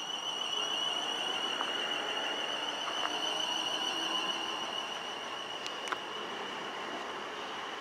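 Class 450 Desiro electric multiple unit pulling away from a station, its traction equipment giving a steady high whine over the rumble of the wheels on the rails. A couple of sharp clicks come about six seconds in.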